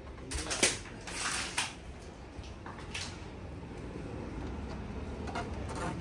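Irregular rustling and clicking, clustered in the first two seconds with a few more later on, over a steady low rumble.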